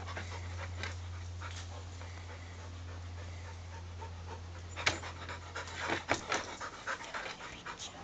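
Clumber spaniel panting, the quick breaths growing louder and sharper about five seconds in, over a steady low hum.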